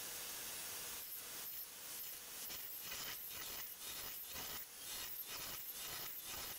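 CNC milling machine cutting a metal part with a small end mill: a steady hiss, then from about a second in a rasping cutting sound that comes in pulses about three times a second.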